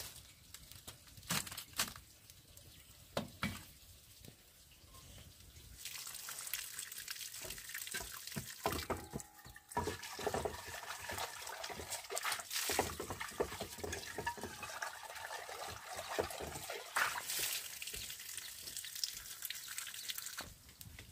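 Water running and splashing, with scattered knocks and clatter of things being handled. The running water comes in about six seconds in, after a quieter stretch of a few knocks.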